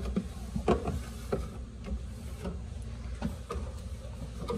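Scattered soft knocks and handling noises, about eight in all at uneven intervals, from cleaning a spill inside an open refrigerator, over a low steady rumble.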